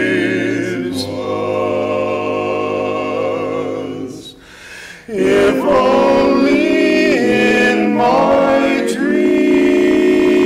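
Male vocal quartet singing a cappella in close harmony: a long held chord, a short pause about four seconds in, then the voices come back in on moving chords and settle on another held chord near the end.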